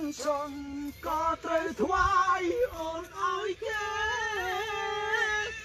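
One voice singing a melody in short held phrases, ending in a long wavering note held for about two seconds near the end.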